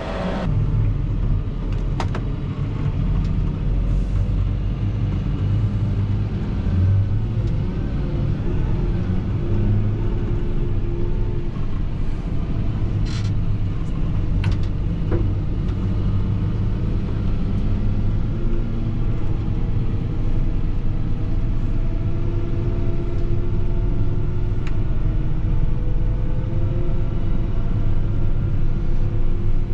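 Fendt 716 Vario tractor running steadily under load, pulling a slurry tanker, with a deep, even rumble and a few light clicks.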